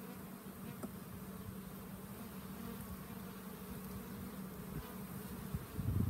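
Russian honey bees buzzing around an open hive: a steady hum, with one faint click about a second in. A low rumble comes in near the end.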